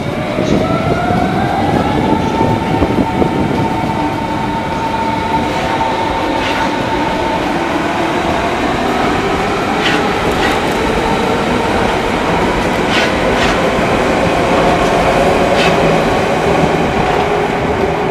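Berlin S-Bahn electric train pulling out and running past, its motors giving a whine that rises in pitch as it speeds up, over a steady rumble of wheels on rail with a few clicks from the wheels further on.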